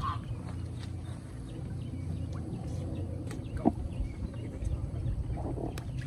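Ducks on the water calling faintly, with one short, sharper call about three and a half seconds in, over a low steady rumble.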